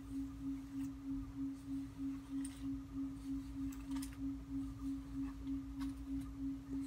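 A steady low humming tone that pulses about three times a second, with faint rustles and small clicks of hair being gathered up by hand.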